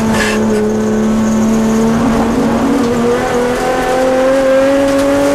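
Nissan Sentra SE-R race car's engine heard from inside the cabin, holding a steady note through a corner, then climbing steadily in pitch as it accelerates onto the straight.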